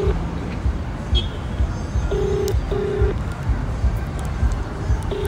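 Phone ringback tone heard through the phone's speaker while an outgoing call waits to be answered. It is a double ring of two short beeps at one steady pitch, about two seconds in and again at the very end, over a low rumble.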